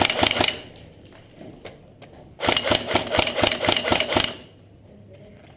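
Airsoft electric gun firing on full auto: a short burst, then a longer burst of about two seconds of rapid, evenly spaced shots from the gearbox cycling.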